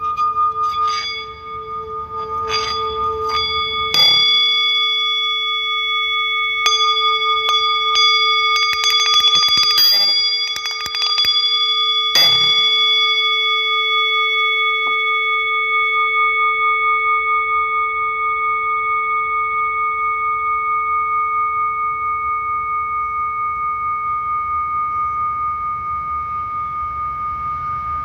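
Metal singing bowls struck several times, with a quick flurry of small chime-like strikes in the middle, then a long ringing tone with a slow wobble that gradually fades.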